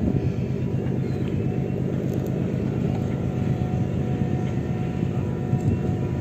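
An engine running steadily at idle, a continuous low rumble with a fast, even pulse.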